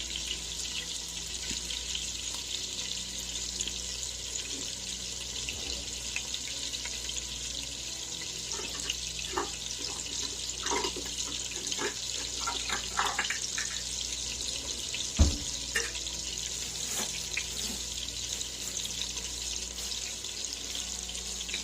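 Kitchen tap running steadily into a sink, with a few light clinks of utensils or dishes in the middle and one sharp knock about fifteen seconds in.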